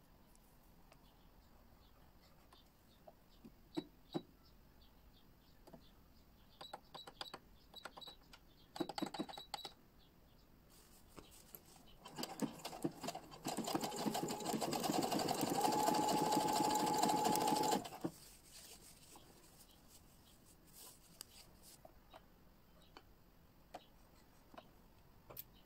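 Domestic electronic sewing machine stitching an overcast edge on fabric for about six seconds: a fast, even run of needle strokes with a steady motor whine toward the end, stopping abruptly. A few scattered clicks come before it.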